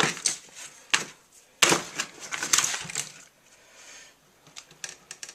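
Plastic packaging crackling and clicking while tiny zip ties are cut with scissors. There is a sharp click about a second in, then a stretch of crinkling, then light ticks near the end.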